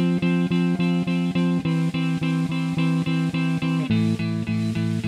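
Electric guitar strumming chords in quick, even strokes, about seven a second, changing to a lower chord about four seconds in.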